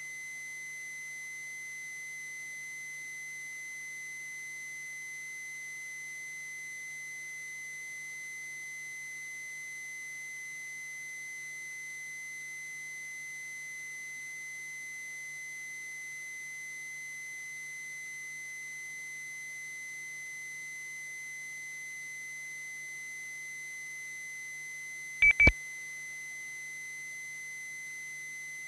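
A steady, thin, high-pitched tone, near 2 kHz, hums on a two-way radio feed while no one is transmitting. About 25 seconds in it is broken by two quick clicks close together.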